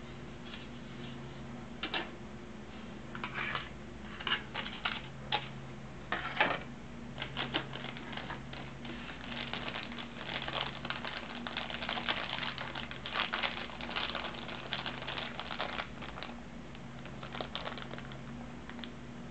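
Crinkling and crackling of a small clear plastic zip bag of rubber model-car tires being handled, densest through the middle, after scattered sharp clicks of plastic kit parts being handled in the first few seconds. A steady low hum sits underneath.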